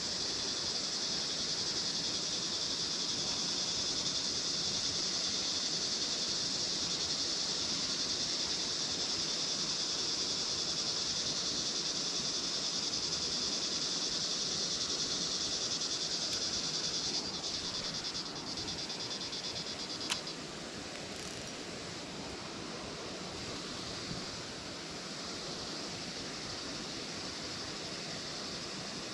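Steady high-pitched insect buzzing over faint outdoor background noise. The buzzing fades down about two-thirds of the way through, and a single sharp click is heard about then.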